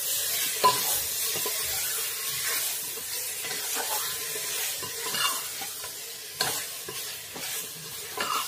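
Chicken pieces frying and sizzling in oil and spice masala in a pressure cooker pot while a spatula stirs and scrapes them, with a few sharper knocks of the spatula against the pot.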